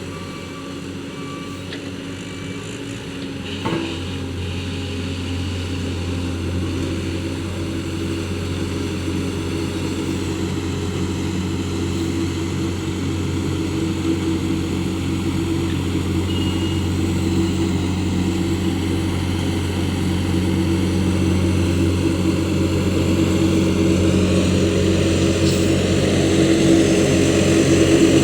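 Heavy road-construction machine's diesel engine running steadily, growing gradually louder, with a short knock about four seconds in.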